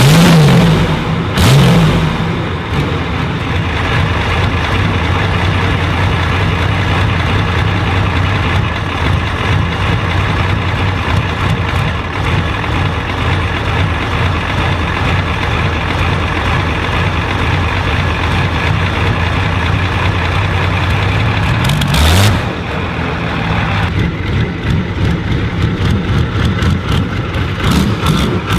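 A powerful engine running steadily, with loud revs at the start and again about 22 seconds in.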